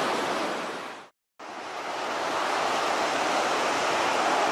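Surf on a sandy beach, a steady rush of waves breaking. It fades out about a second in, cuts to silence briefly, then fades back in.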